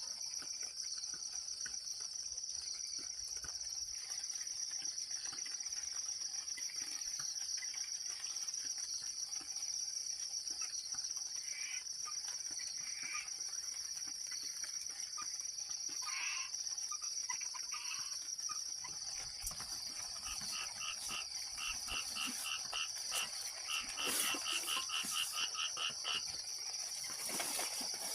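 Insects, crickets by their sound, trilling steadily in a high-pitched chorus. About two-thirds of the way in, another animal joins with a quick run of repeated pulsing notes that grows louder toward the end.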